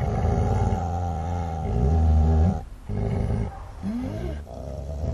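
Dogs growling and snarling in a low, continuous rumble, broken by short pauses about two and a half seconds in and again at about four and a half seconds. A higher snarl rises in pitch just before the second pause.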